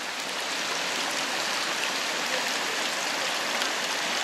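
Fountain water splashing down a small stone cascade into a pool, a steady rushing.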